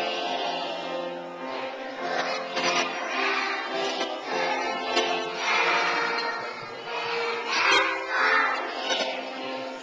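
A children's choir singing a song with instrumental accompaniment, the voices and held accompaniment notes continuing steadily.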